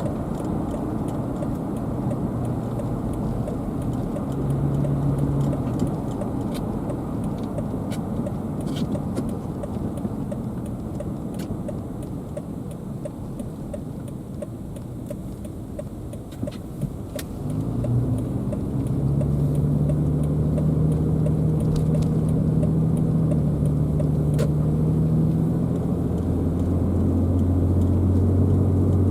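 Car driving: steady road and engine noise, with the engine note growing louder and steadier about two-thirds of the way in as it pulls under power. A few light ticks and rattles sound now and then.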